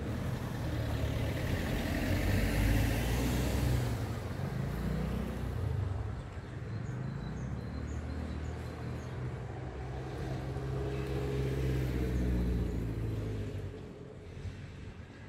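Road traffic passing: a motor vehicle's engine running with tyre noise, swelling about two to three seconds in and again around twelve seconds, then fading near the end.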